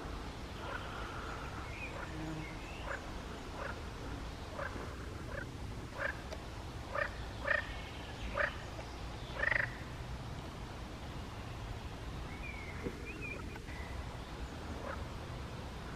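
Frogs calling from the reedy pond: a string of short croaks, loudest and most frequent about six to ten seconds in, over a steady low rumble.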